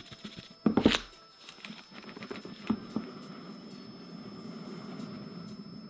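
Cardboard microphone box and its packaging being opened and handled: a sharp rustle or knock about a second in, then a steady rubbing noise with a few light clicks as the packaging is worked open.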